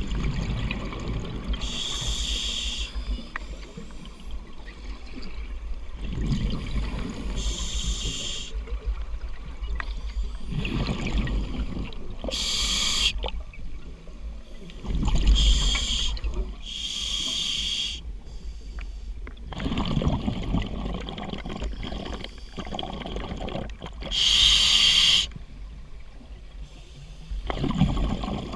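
A scuba diver breathing through a regulator underwater, about five breaths: short hissing inhalations alternate with low, rumbling bursts of exhaled bubbles.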